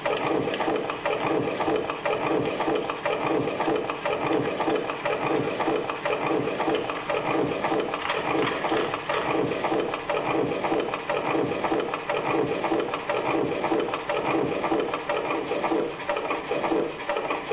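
Live laptop electronic sound performance over loudspeakers: a dense, continuous texture of fast, evenly repeating clicks and noisy pulses with a machine-like rhythm.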